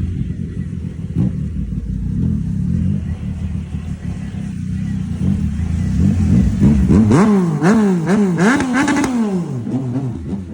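Yamaha MT-09's inline three-cylinder engine idling, then revved in a quick series of about six throttle blips from about seven seconds in, each one rising sharply and dropping away, before it settles back to idle near the end.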